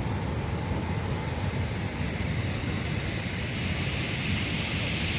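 Floodwater of a swollen river rushing past: a steady, heavy rumble of churning water, its hiss growing stronger in the second half.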